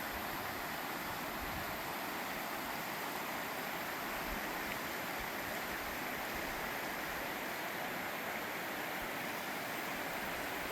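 Mountain creek running, a steady even rush of water with no change.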